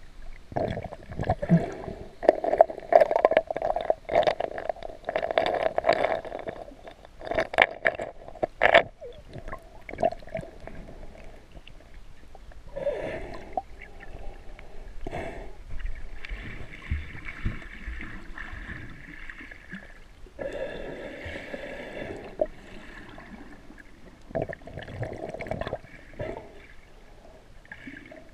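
Water gurgling and sloshing heard from underwater, with scattered sharp knocks and clicks, several coming close together around seven to nine seconds in.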